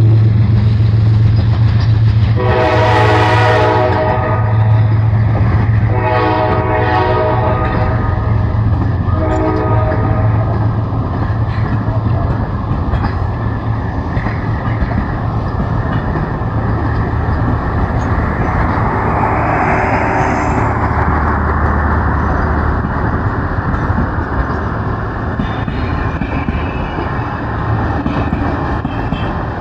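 Diesel locomotive engine running with a steady low drone, its horn sounding three times in the first ten seconds. A rushing noise swells and fades about twenty seconds in.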